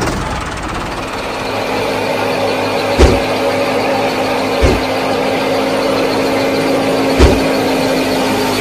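Small model wheat thresher running steadily with a constant whirring hum and noise, with three sharp knocks about 3, 4.5 and 7 seconds in.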